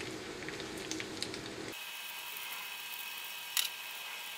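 Metal tongs clicking against a nonstick skillet as spaghetti and pancetta are tossed, over a steady faint hiss. A few light clicks come in the first second or so, and a short, louder clatter comes about three and a half seconds in.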